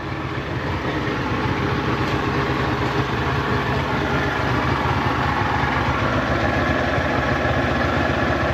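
Johnson Evinrude outboard motor idling steadily and running smoothly.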